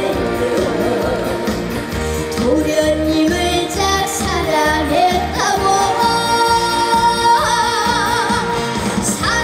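A female vocalist singing a Korean trot song over instrumental accompaniment with a steady beat. In the second half she holds a long note with a wide vibrato.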